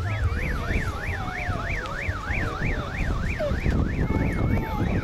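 Electronic siren sounding a fast yelp, its pitch sweeping evenly up and down about three times a second, over a low background rumble.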